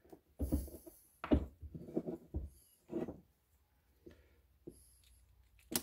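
Soft knocks and clicks of a steel ratchet head and picks being handled against a wooden workbench as a part is worked back into place. There are about five separate knocks in the first three seconds, then it goes quieter, with one sharp click near the end.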